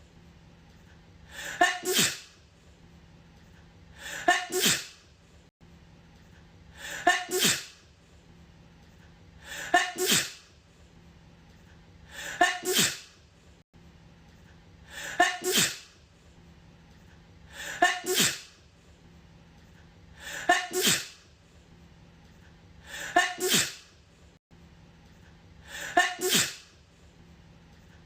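A woman sneezing: a quick in-breath building up into a sharp, loud "achoo". The same sneeze repeats identically about every two and a half seconds, ten times over, as a looped clip.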